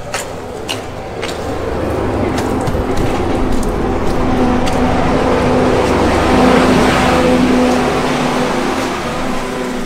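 A motor vehicle passing close by: its engine hum grows louder, peaks about two-thirds of the way through, then fades. A few sharp clicks come near the start.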